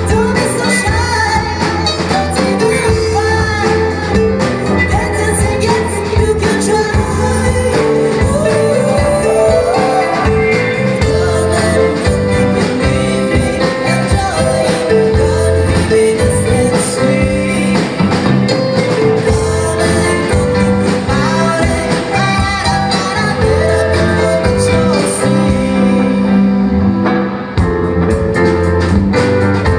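Rock band playing a song, with drums, bass, guitar and singing, at a steady beat.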